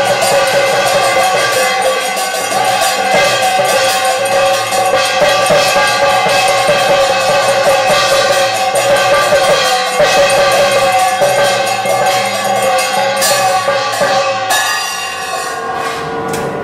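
Brass puja hand bell rung continuously during the aarti, its tones ringing on over a rapid run of strikes, with drum beats alongside. The ringing thins out about two seconds before the end.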